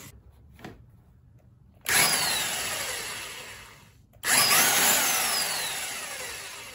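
Bauer corded impact wrench run in two bursts of about two seconds each, each loudest at the start and fading, with a whine falling in pitch. It is spinning the scooter's clutch nut without breaking it loose, because the rear wheel is not locked to hold the clutch.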